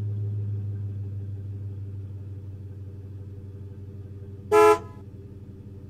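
Low steady drone of a car running, slowly fading, with one short car horn honk about four and a half seconds in.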